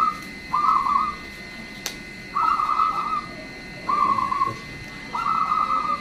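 A trilling whistled note, level in pitch and under a second long, repeated four times about every second and a half.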